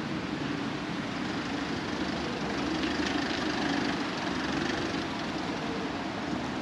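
Steady low hum of street traffic, a little fuller midway.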